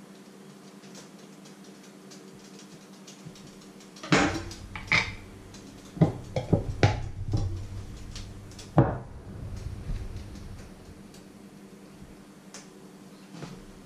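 Kitchen utensils knocking and clinking on a wooden cutting board as a knife is put down and a small jar is handled. There is a run of sharp knocks between about four and ten seconds in, the loudest near the start of the run and again near its end, over a faint steady hum.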